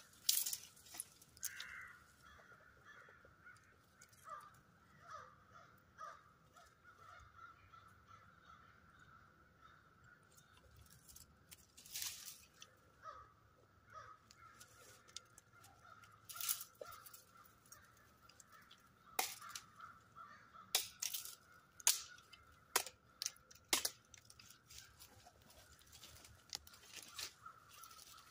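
Dry sticks and branches snapping, about ten sharp cracks at uneven gaps and most of them in the second half, over a faint steady high-pitched background sound.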